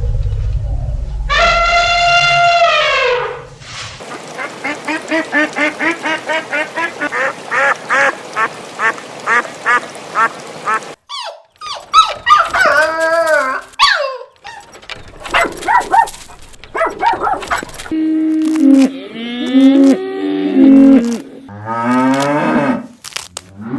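A string of different animal calls cut one after another. First a long call whose pitch drops at the end, then a run of quick, evenly repeated calls, then a mix of shorter calls rising and falling in pitch.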